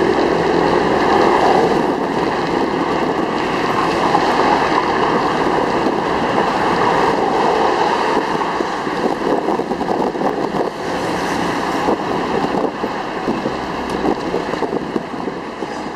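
Jeepney running along a street, heard from on board: steady engine and road noise with wind buffeting the microphone.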